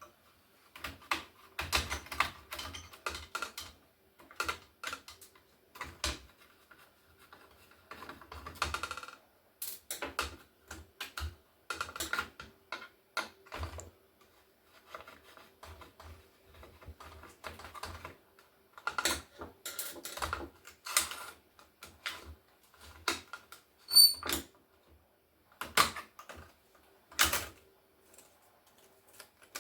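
Irregular clicks, taps and rattles of small plastic and metal laptop parts being handled and prised apart during the teardown of a Toshiba T4700CT. About 24 seconds in, one sharper metallic click rings briefly.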